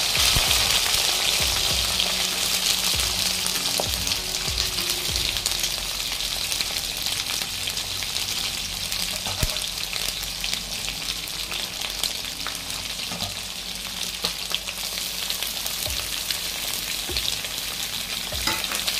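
Sliced ivy gourd (tindora) sizzling as it fries in hot oil in a kadai, with a few light clicks over the steady sizzle. The sizzle is loudest as the slices go in and eases a little over the next several seconds.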